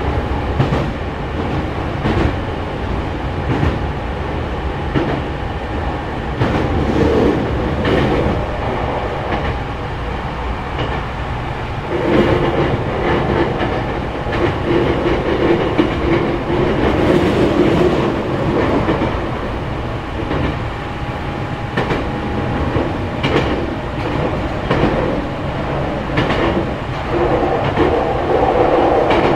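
Hankyu 3300 series eight-car electric train running at speed, heard from inside the leading car: a continuous rumble of wheels and motors with a steady whine. Wheels click over rail joints now and then, and the noise grows louder for several seconds in the middle.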